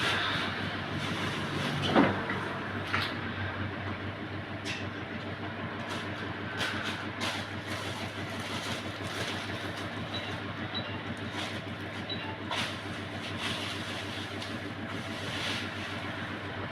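A steady low mechanical hum with scattered clicks and knocks, the sharpest about two seconds in.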